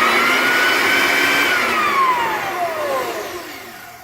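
Clarke floor edger's electric motor running at full speed with a high whine, then switched off about a second and a half in and winding down, the whine falling steadily in pitch and fading. A brief test run showing the newly replaced switch turns the motor on and off.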